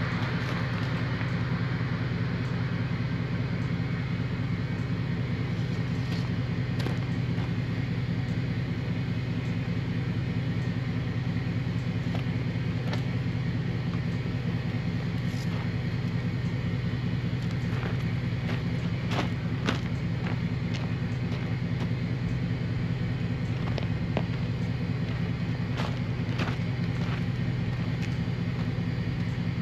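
Steady low engine hum running evenly throughout. A few faint clicks and knocks are heard from work at the wheel, mostly in the second half.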